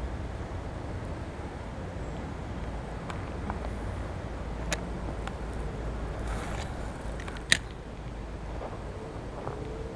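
A baitcasting reel clicking a few times as a lure is cast and retrieved, the loudest click about seven and a half seconds in, over a steady low rumble.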